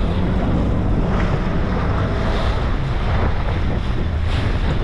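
Wind buffeting the microphone on a moving fishing boat, over the steady run of the boat's motor and water rushing along the hull.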